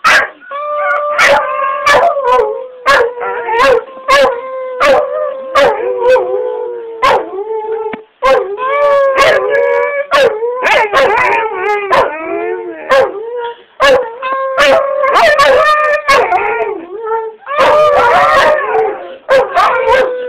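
A husky making his own strange, warbling attempt at a howl: long wavering notes that keep breaking off every second or so in short sharp catches and yips, instead of a clean howl.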